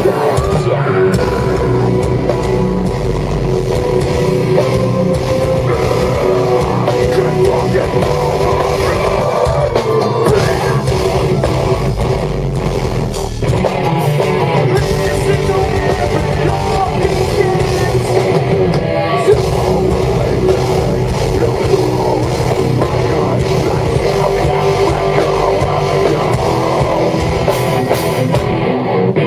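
Live heavy metal band playing loudly and without a break: distorted guitars over a drum kit.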